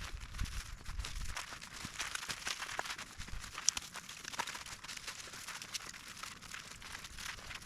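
Continuous dry crackling and rustling made of many small, irregular ticks.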